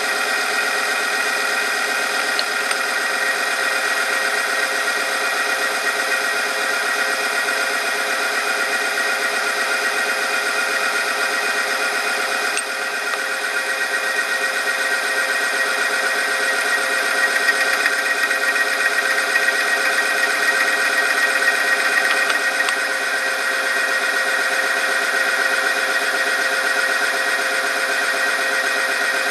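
Oil film strength test machine running under load: its electric motor turns a steel ring through the oil bath while a weighted lever presses the test sample against it, giving a steady whine and squeal of metal rubbing through an oil film. It swells a little louder around the middle.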